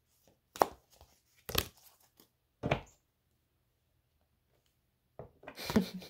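Tarot cards being handled: three sharp card slaps or flicks about a second apart, a pause, then a quick run of card noises near the end.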